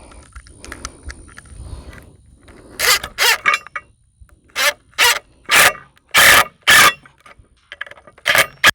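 Power driver run in short trigger bursts, driving a lag screw into a wooden gate post. About three seconds in come roughly nine loud bursts, each under half a second; handling and rustling come before them.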